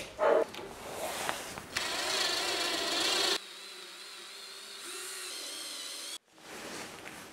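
Cordless drill boring into a metal block, its motor whine wavering in pitch under load. About three and a half seconds in the sound drops to a quieter, steadier high whine, which breaks off suddenly near the end.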